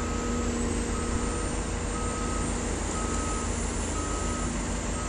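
Heavy earthmoving machine's reversing alarm beeping steadily about once a second over the continuous running of diesel machinery, an articulated dump truck and a wheel loader.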